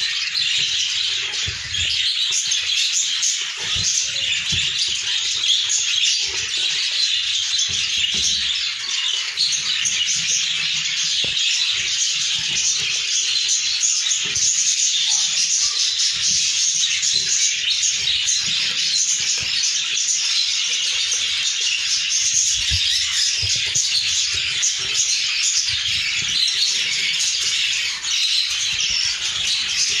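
A flock of budgerigars chattering and chirping together in a continuous high din, with scattered low knocks from handling close to the microphone.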